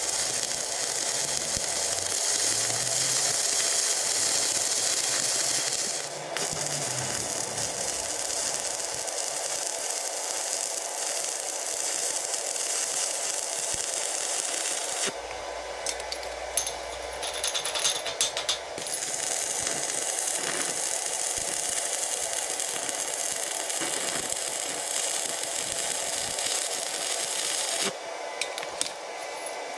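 Stick (manual metal arc) welding on steel: the electrode's arc crackling and hissing steadily, broken briefly a few times as the run stops and the arc is struck again.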